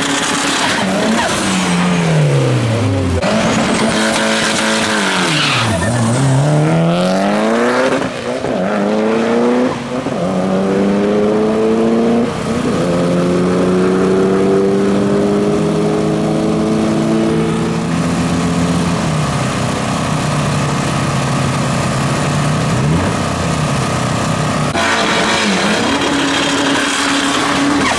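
Mitsubishi Lancer Evolution's turbocharged four-cylinder revving hard with tyres spinning in a burnout, then launching and pulling away through several upshifts, its pitch climbing and dropping back at each shift before fading into the distance. Near the end the engine revs loudly again.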